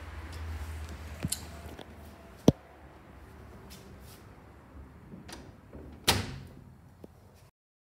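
Door in a metal frame being handled: a few sharp knocks and clicks, the loudest about two and a half seconds in and another loud one with a short ring around six seconds, over a low hum; the sound cuts off abruptly near the end.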